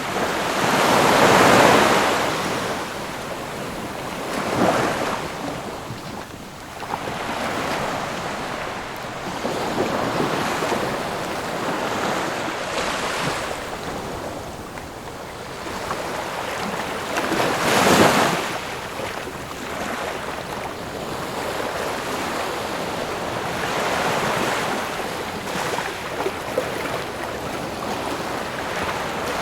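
Ocean surf: waves breaking one after another, each a rushing swell of noise that rises and falls back, the loudest about a second in and another strong one near eighteen seconds.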